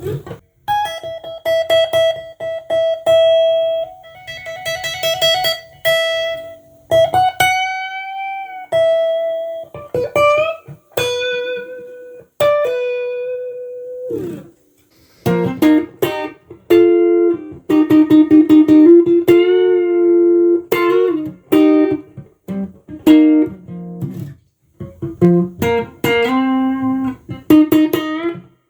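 Stratocaster-style electric guitar (a Tomson Spirit Sounds) played solo as a melodic lead line. It starts with a repeated picked note and string bends that rise and fall back. From about halfway it moves to two-note double stops played with vibrato, in short phrases separated by brief pauses.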